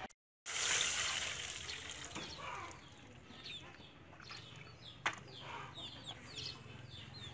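Chickens clucking and chirping, with a run of short, high, falling chirps from about three seconds in. There is a single sharp knock about five seconds in.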